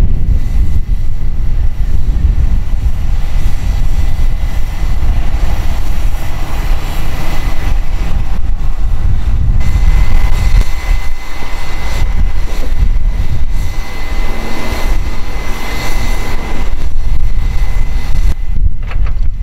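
Steady low rumble of heavy tow-truck diesel engines running, with wind buffeting the microphone and a faint steady whine over it.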